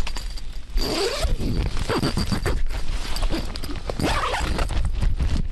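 Tent zipper being pulled in several short, scratchy strokes, as if it is snagging.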